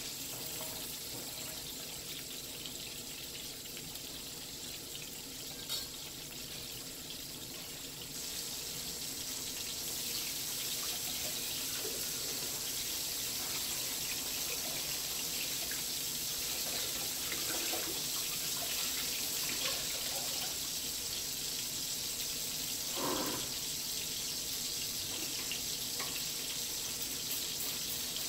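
Pollack fillets sizzling as they brown in olive oil in a skillet: a steady hiss that grows a little louder about eight seconds in. A faint tick near six seconds and a short sound near the end break in briefly.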